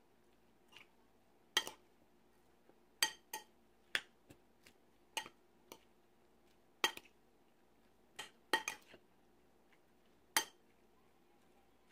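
Metal spoon clinking against a cut-glass bowl while stirring a chopped banana-flower salad: a dozen or so sharp, irregular clinks, some much louder than others.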